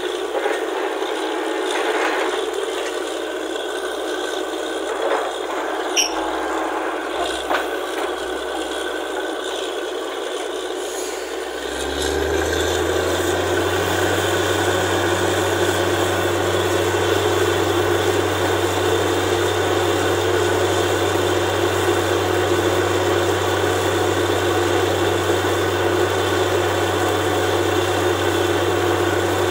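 Borewell drilling rig machinery running steadily, with rattling and scraping and a few sharp clicks. About twelve seconds in, a deep steady engine hum comes in and the sound grows a little louder.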